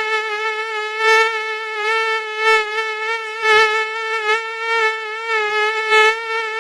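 Mosquito whining in flight: one steady high-pitched buzz with a slight waver, swelling louder now and then.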